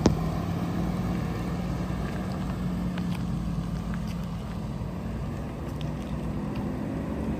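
Heavy-duty pickup truck's engine running with a steady low hum as it pulls away, with a sharp click right at the start.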